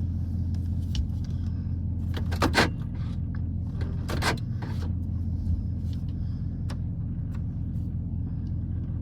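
A 2005 GMC Sierra's engine idling steadily, heard as a low hum from inside the cab, with a few short clicks and knocks about one, two and a half, four and five and a half seconds in as the pushbutton four-wheel-drive selector is worked and the truck shifts between drive modes.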